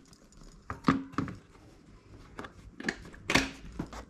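Handling noise: a string of sharp knocks and clicks from hard objects being picked up and set down, the loudest about a second in and again near the end, some with a brief ring.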